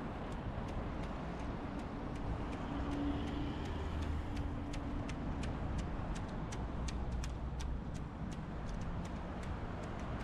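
Steady street traffic rumble, with a vehicle passing and swelling about three seconds in. Over it runs an even series of sharp ticks, about three a second, from a few seconds in.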